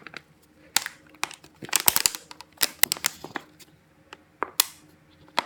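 Plastic drink bottle holding water and fake bird poop powder being shaken to mix it, the plastic crinkling and knocking in irregular clicks.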